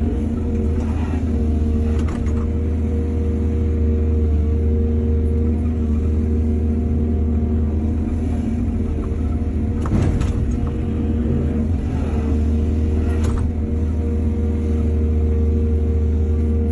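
Excavator's diesel engine running steadily under load, with a few sharp metallic knocks about a second in, two seconds in, near the middle and about three-quarters of the way through.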